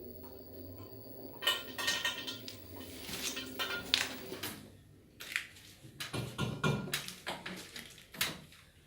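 LG washer-dryer starting a wash cycle: a low steady hum, then irregular metallic clinks and knocks from about a second and a half in. The noise comes from the back of the machine, where something is taken to be knocking against a wire.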